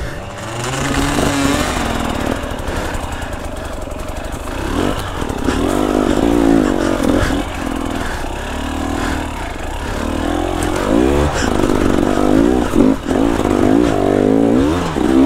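Two-stroke dirt bike engine revving up and down over and over, its pitch rising and falling about every second or so, as the bike works up a steep, loose, rooty climb.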